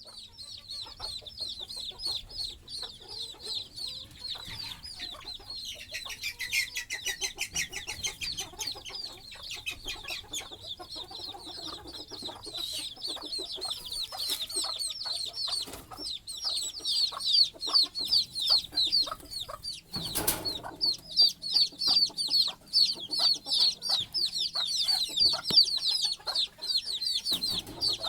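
A brood of baby chicks peeping continuously, many short high cheeps a second, with a mother hen's low clucking underneath. There is one brief noise about two-thirds of the way through.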